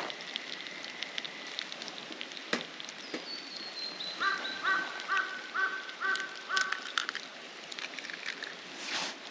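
A crow cawing: a quick run of about six harsh caws, a few seconds in, with a thin high falling whistle from another bird just before and scattered sharp clicks and knocks.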